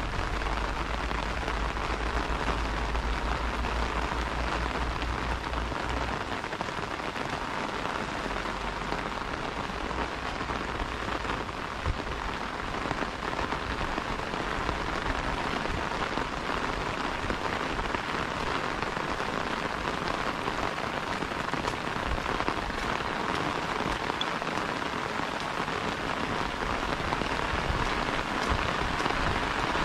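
Steady rain, pattering on an umbrella held overhead and falling on soaked grass.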